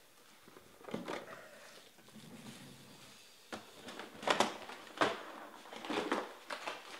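Trading card pack wrappers crinkling and rustling in irregular spurts as foil card packs are handled and opened by hand.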